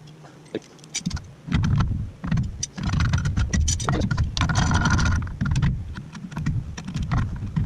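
A clamp being fitted and metal parts handled on the table's frame: a run of clicks and knocks over a low handling rumble, with a denser scraping, rattling stretch around the middle.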